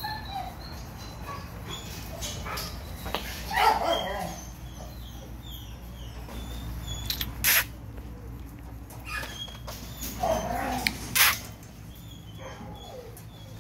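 Shelter dogs barking in their kennels in short bouts, the loudest about a third of the way in and again near the end. Two sharp knocks ring out in between, over a steady low hum.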